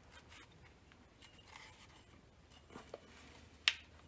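Faint handling of Magpul Hunter rifle stock parts being fitted together: light rubbing and small knocks, then one sharp click a little before the end.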